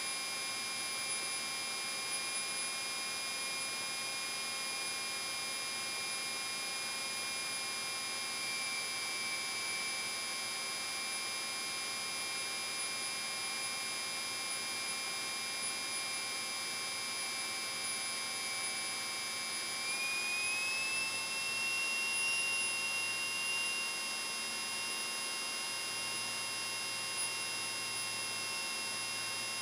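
Piper Cherokee 140's four-cylinder Lycoming engine at reduced power on final approach, heard from the cockpit as a steady drone with several high steady whines. About twenty seconds in, the tones step up slightly in pitch.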